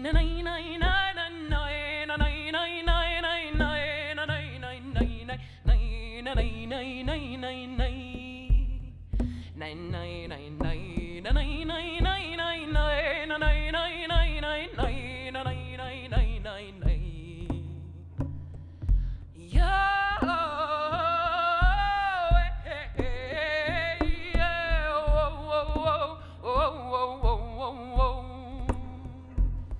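A woman singing an icaro, a chanted healing song, in long sliding notes without clear words, over a steady low beat. The voice pauses briefly twice.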